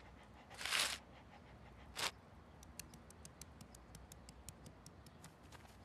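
Cartoon footstep sound effect for a dog trotting: quick, light, faint ticks at about six a second. They are preceded by a short swish about a second in and a brief one at two seconds.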